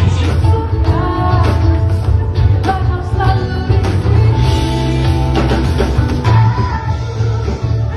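Live pop band music with a singer, over a heavy, loud bass line and drums.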